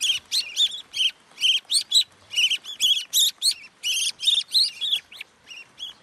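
A wet fledgling songbird giving a rapid run of sharp, repeated chirps, about three a second, thinning out near the end: begging calls as it flutters its wings and is fed by hand.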